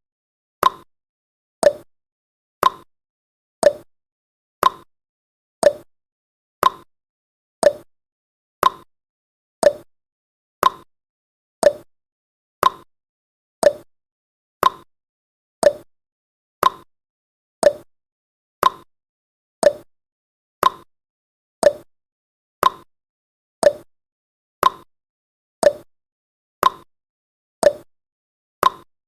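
Countdown timer's ticking sound effect: one short, sharp tick every second, alternating between a lower and a higher tick like a clock's tick-tock.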